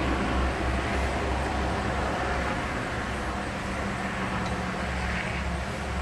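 Steady low rumble and hiss of road traffic.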